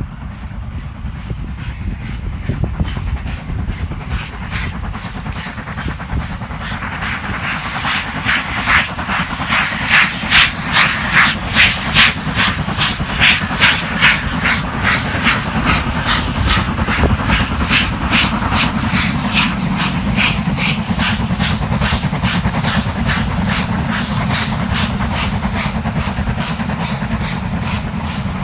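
British steam locomotive working hard as it passes at the head of a passenger train: a steady low rumble, with a rapid, sharp exhaust beat coming in about six seconds in. The beat is loudest around the middle and fades as the train draws away.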